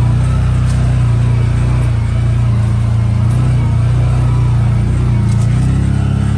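ATV engine running steadily with a low drone while riding.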